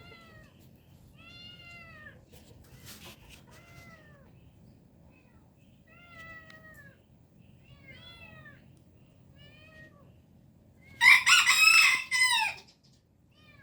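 A kitten meowing repeatedly with short, arching cries, then a rooster crowing loudly for under two seconds near the end.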